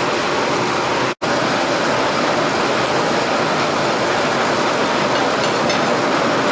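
A forge running with a steady, even roar, broken by a momentary cut about a second in.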